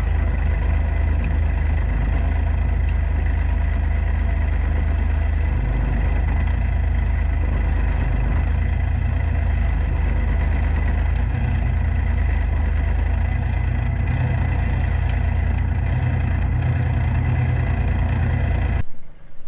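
Compact tractor engine running steadily at constant speed; it cuts off abruptly just before the end.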